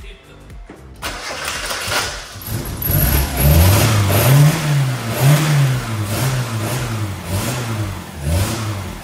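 Mazda Miata four-cylinder engine cranking and catching about a second in, then running with its engine speed rising and falling over and over, about once a second. It runs really poorly, with plugs that show it running very rich.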